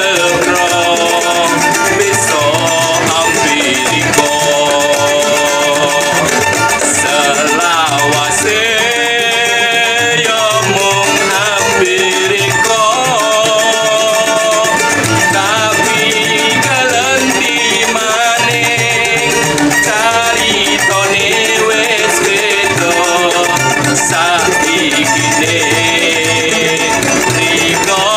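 Campursari song played on acoustic guitars and a small ukulele-type string instrument, strummed and plucked at a lively pace, with a man singing lead over it.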